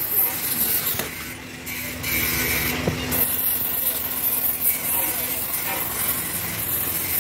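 Gas welding torch hissing steadily as its flame and filler rod weld a cylinder head. The hiss drops away briefly about a second in and again near three seconds.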